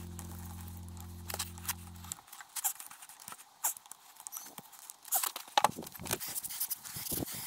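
Irregular metallic clicks and taps of a wrench being used to tighten the plugs on a mini excavator's travel motor after a gear-oil change. A steady low hum runs underneath at first and stops about two seconds in.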